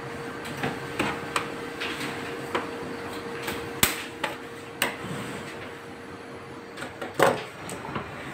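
Scattered clicks and knocks of a Ricoh MP 201 copier's plastic panels being handled, the loudest about four and seven seconds in. Under them runs a faint steady hum that stops about seven seconds in.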